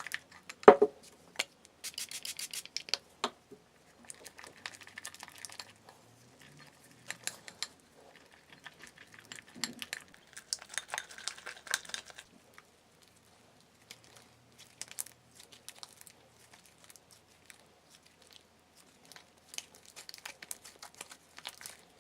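Freshly activated PVA-glue slime being mixed and worked: irregular sticky crackles, soft clicks and rubbing in short spells, pausing now and then.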